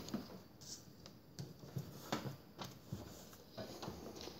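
Faint paper rustles and scattered light taps of a sticky note being handled and pressed onto a wall.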